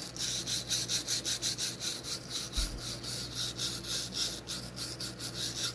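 Nylon-bristle detailing brush scrubbing inside the chamber of a briar tobacco pipe, a rapid even run of scratchy strokes, about four a second.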